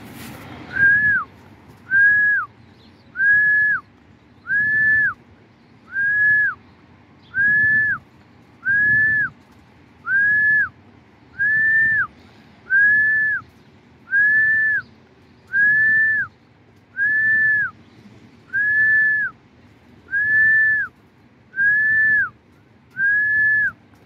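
A whistled note, held about half a second at one pitch and dropping off sharply at the end, repeated over and over about every second and a half.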